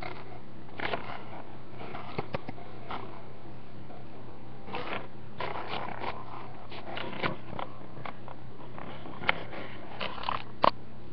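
Mighty Beanz plastic toy capsules and their plastic collector tray handled close to the microphone: scattered clicks and rustling over a steady hiss, with a sharper click twice near the end.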